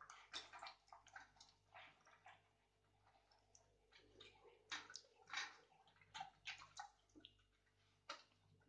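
American pit bull terrier eating soft food from a stainless steel bowl: faint, irregular short wet chewing and clicking sounds.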